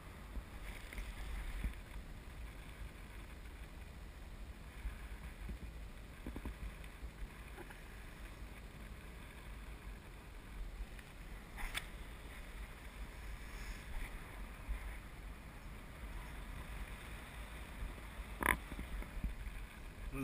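Wind buffeting the microphone of a parasailer's harness-mounted camera high in the air: a low rumble that rises and falls with the gusts. Two short sharp clicks, one just before the middle and one near the end.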